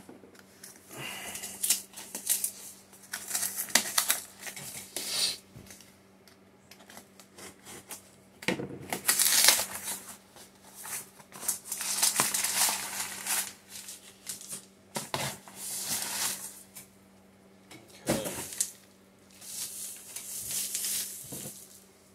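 Unpacking a cardboard shipping box by hand: irregular rustling, scraping and sharp clicks of cardboard and packaging being handled, over a faint steady hum.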